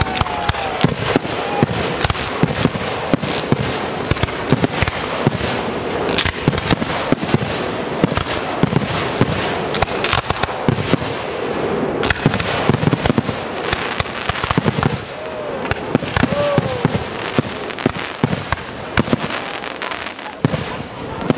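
Fireworks display in a dense barrage: a continuous rapid run of bangs over steady crackling from fan-shaped volleys of comets and bursting shells, with a couple of short whistling glides about fifteen seconds in.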